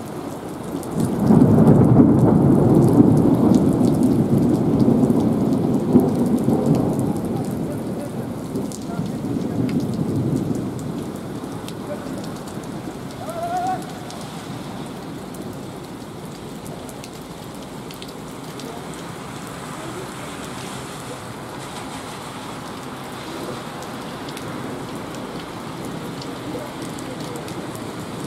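A long rumble of thunder that begins about a second in, rolls for roughly ten seconds and dies away, over steady heavy rain pouring down.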